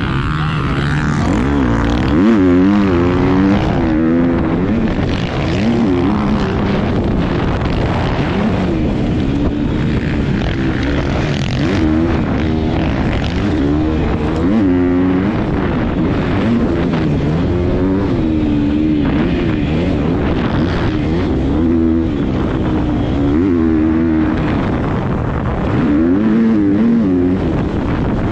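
Motocross dirt bike engine heard from on board, repeatedly revving up and dropping back as the rider accelerates, shifts and rolls off through the turns.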